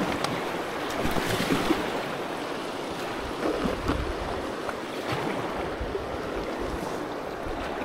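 River water rushing and splashing around a kayak running a small rapid, with the paddle working the water and wind buffeting the microphone.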